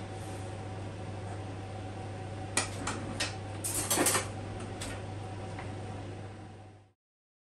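Dishes and utensils clattering on a kitchen counter: a few sharp knocks, then a short louder rattle about four seconds in. A steady low hum runs under it, and the sound fades out near the end.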